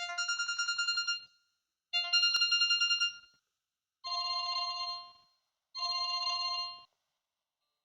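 Samsung GT-E1200I mobile phone's built-in alert tones playing through its small speaker: four short bursts of rapid electronic beeping, each about a second long with brief gaps. The first two are alike, and the last two are alike and lower.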